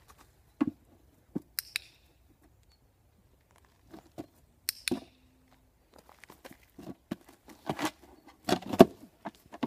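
Light plastic box knocked and scraped over leaf-strewn grass by a dog nosing and pawing at it, with scuffing of paws in dry leaves. A few separate knocks at first, then a thicker run of knocks and scuffs in the last few seconds, loudest near the end.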